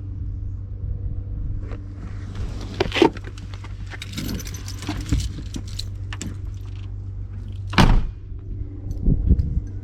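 A vehicle's steady low rumble with jangling and rattling, and two sharp knocks about three and eight seconds in.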